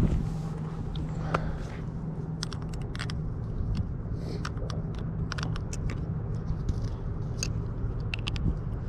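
Scattered clicks and taps from an FPV quadcopter and a prop wrench being handled to get at a loose propeller, over a steady low rumble of wind on the microphone.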